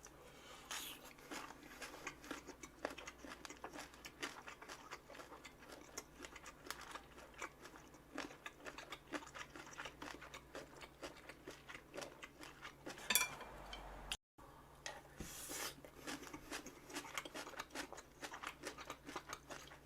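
Close-miked chewing and crunching of food, a dense run of irregular small clicks and crunches with an occasional louder clack of tableware. The sound drops out completely for a split second about two-thirds of the way through.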